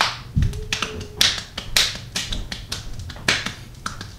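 Hand slapping and patting a bare belly: a dozen or so sharp skin slaps at an uneven pace.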